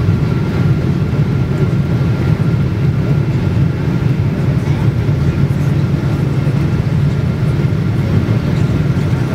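Steady cabin noise of a Boeing 777-200ER heard inside the cabin by the wing during the descent: the even, low rumble of airflow and the GE90 engines, with a faint steady high whine over it.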